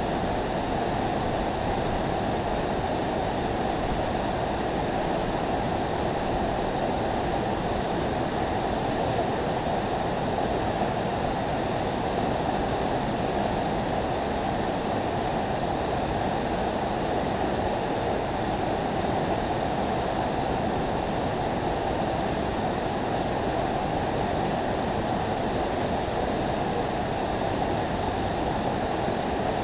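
Steady rush of water pouring through a river spillway, an even, unbroken noise.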